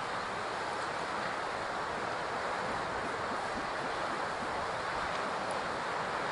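Steady ocean surf and wind: an even rushing noise that holds without a break.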